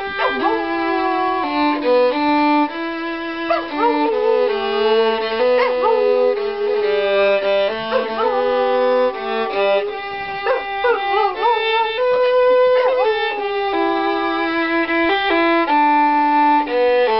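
A violin plays a melody of held notes while a dog howls along with it, its wavering, gliding howls rising over the music several times.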